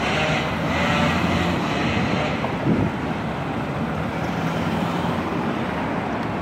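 City street traffic: cars driving past close by with tyre hiss over a steady low engine drone, as an articulated diesel bus approaches.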